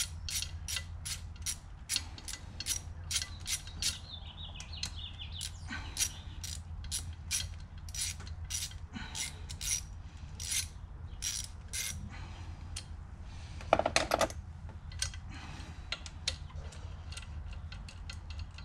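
Ratchet wrench clicking in a steady run, about two to three clicks a second, as it backs out the 10 mm bolts holding the fuel injectors. The clicking thins out about twelve seconds in, with a short louder clatter a couple of seconds later, over a steady low hum.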